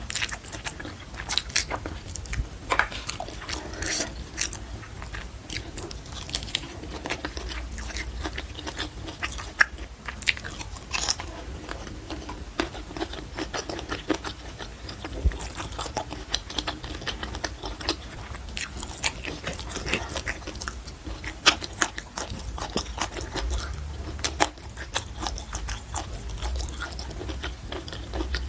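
Close-miked chewing of a mouthful of food, with many short crunches and wet mouth clicks coming irregularly, several a second.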